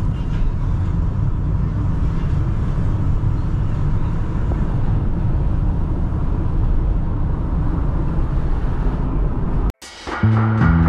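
Steady engine and road rumble heard inside a Toyota car's cabin as it drives. Near the end it cuts off abruptly and music with a beat starts.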